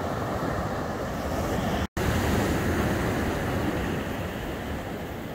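Waves breaking on a sandy beach, a steady rush of surf with wind on the microphone, cut off for an instant about two seconds in.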